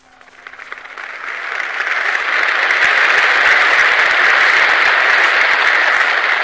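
A huge open-air crowd applauding in response to a speech, on an old 1942 recording. The applause swells over the first couple of seconds, holds loud, and begins to die away near the end.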